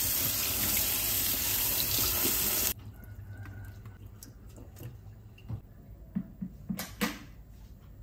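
Kitchen tap running into a stainless steel sink as a rice cooker's inner lid is rinsed under it. The water stops abruptly a little under three seconds in, followed by a few light clicks and knocks as the lid is handled.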